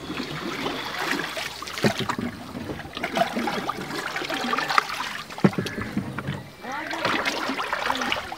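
Shikara being paddled: a wooden paddle dips and pulls through the water and water laps and splashes along the wooden hull, with a couple of sharper knocks, about 2 and 5.5 seconds in.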